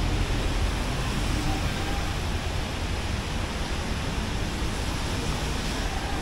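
Steady rushing noise with a strong low rumble and no distinct events: rainy-day street ambience.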